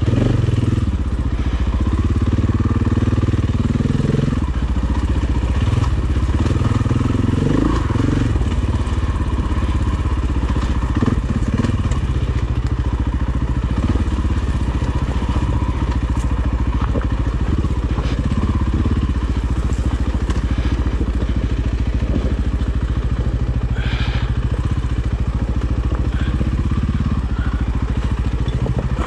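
Dirt bike engine running steadily under way over rocky trail, a constant low engine note, with a few brief knocks from the bike on the rocks.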